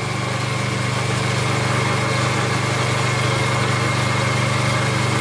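Small petrol engine of a 30-ton hydraulic log splitter running steadily, driving the hydraulic pump as the ram pushes a log toward the splitting wedge; it grows slightly louder over the first second or so.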